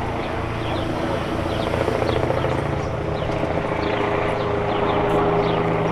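Helicopter circling overhead: a steady rotor and engine drone whose pitch rises slightly about halfway through.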